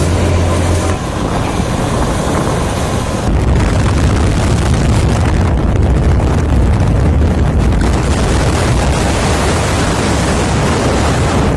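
Wind buffeting the microphone in a snowstorm: a loud, steady rushing rumble, with a cut about three seconds in.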